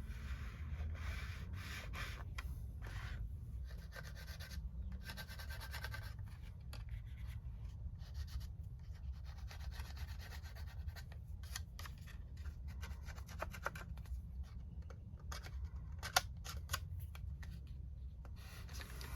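Irregular rubbing and scratching strokes over a steady low hum, with a sharp click about sixteen seconds in.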